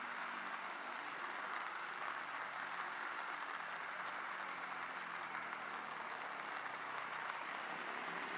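Steady rain falling, an even hiss with no change in level, over a faint low hum.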